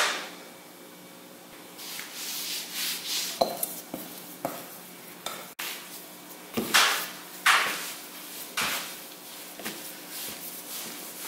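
Bread dough being kneaded by hand on a floured silicone mat: irregular soft pushing and slapping strokes about once a second, with the rustle of flour. It opens with a brief rush as flour is tipped out of a glass bowl onto the mat.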